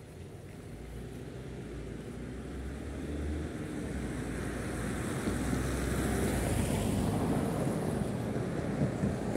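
Wind buffeting the microphone: a low, noisy rumble in uneven gusts that grows louder over the first six seconds or so, then holds.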